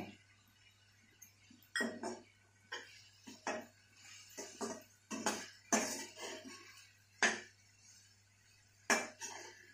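A perforated steel ladle scraping and clinking against a kadhai while vegetables are stirred: about a dozen irregular strokes.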